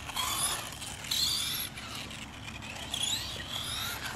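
Brushless electric RC buggy driving hard, its 6900 kV motor whining up and down in pitch as the throttle is worked, over a hiss of tyres on concrete.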